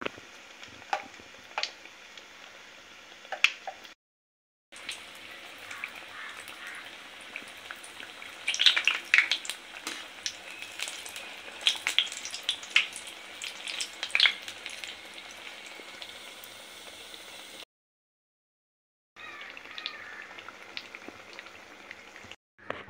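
Batter-coated potato slices (aloo pakoras) deep-frying in hot oil: a steady sizzle with many sharp crackles and pops, cut to silence twice. A few separate clicks come near the start.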